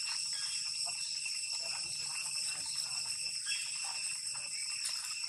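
Steady high-pitched insect chorus, one unbroken shrill drone, with faint scattered ticks and rustles beneath it.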